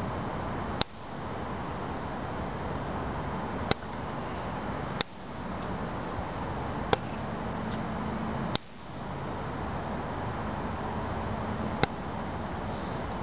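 Steady hiss of ambient noise picked up by a handheld camera's microphone, broken by six sharp, unevenly spaced clicks of the camera being handled. Several clicks are followed by a brief dip in the level.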